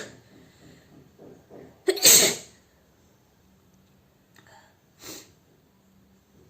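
A woman sneezing forcefully about two seconds in, set off by tickling her nose with a handkerchief. The end of another sneeze falls right at the start, and two brief, much softer sounds follow a few seconds later.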